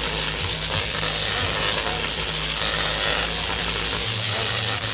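Tesla coil discharges crackling and buzzing loudly as electric arcs jump between two metal swords. Low held notes sound under the crackle and change pitch about four seconds in.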